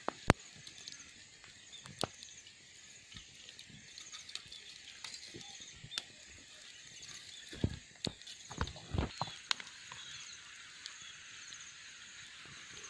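Wood campfire crackling with scattered sharp pops, the loudest just after the start, over a steady high chirping in the background. A few dull knocks come about two-thirds of the way through.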